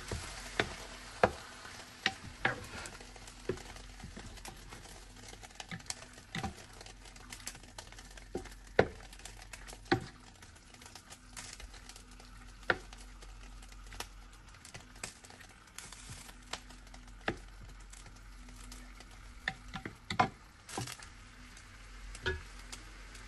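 Pork belly frying in hot oil in a pan, sizzling steadily with sharp pops at irregular intervals as its fat renders out.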